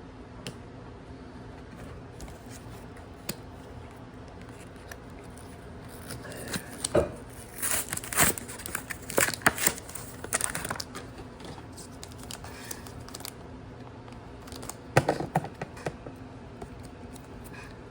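Trading card packaging being crinkled and torn open: a run of sharp crackling and tearing about six seconds in that lasts several seconds, then another short burst near fifteen seconds.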